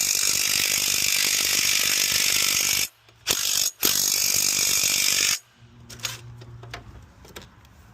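Ratchet wrench clicking rapidly on a bolt in a long run, then a short burst and a second run that stops about five seconds in. Quieter scattered ticks of tools follow.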